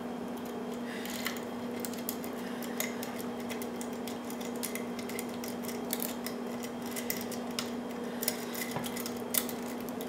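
Bogota multi-pin rake scraping and ticking against the pins in a brass Fraim pin-tumbler padlock under tension: many light, quick metal clicks that come thicker toward the end, with one louder click shortly before the end. A steady low hum runs underneath.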